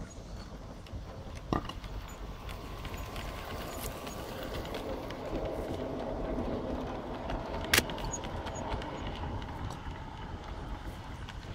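Large-scale garden-railway freight train rolling past close by: a steady rumble and clatter of wheels on the track. A faint hum runs through the middle, and two sharp clicks stand out, one about a second and a half in and one near eight seconds in.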